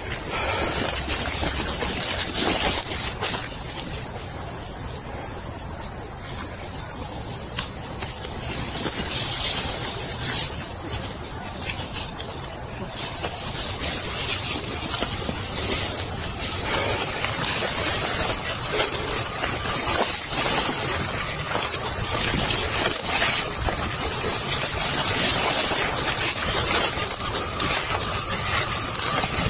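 Footsteps through leafy undergrowth, with the rustle of brush, clothing and a body-worn camera over a steady hiss.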